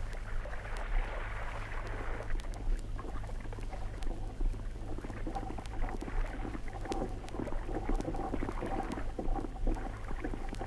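Radio-drama sound effect of men wading through shallow water: irregular, continuous splashing and sloshing with small knocks. A steady low electrical hum from the old recording runs underneath.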